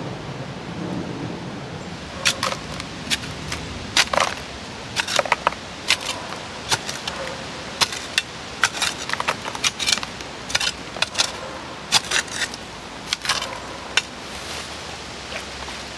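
Gravel and stones scraping and clinking as a creek-bed sample is dug and dropped into a gold pan: an irregular run of sharp clicks and scrapes from about two seconds in to about fourteen seconds, over a steady hiss.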